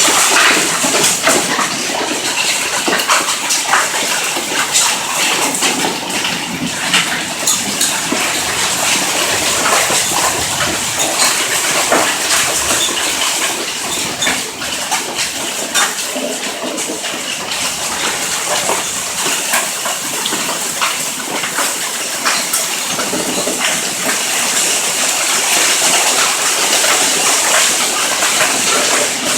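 Hailstorm: hailstones and rain pelting down steadily, a dense rush of water noise dotted with many sharp individual hits.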